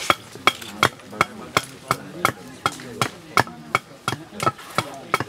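Hand tool chopping into a wooden akadinda key in sharp, even strokes, about three a second, shaving wood from the key. Stripping wood off the belly of a key is how the keys are shaped and tuned.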